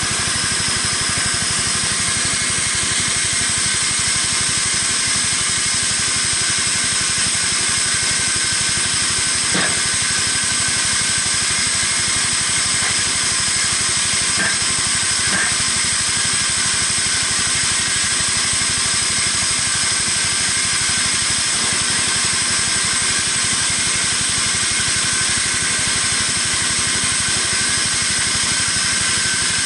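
Homemade band sawmill running steadily as its band blade cuts lengthwise through a log: a constant hiss with a few thin steady whining tones, and a couple of faint clicks about halfway through.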